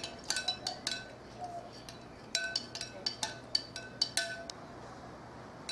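Spoon clinking against a bowl while stirring glue, water and food colouring for homemade slime: quick, ringing clinks, a pause of about a second, another run of clinks, then quiet near the end.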